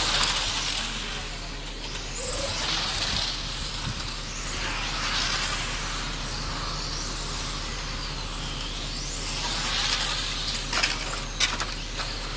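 Electric 1/10-scale PRO10 pan cars racing: the high whine of their motors rises and falls as they pass, about every two to three seconds. A few sharp clicks come near the end.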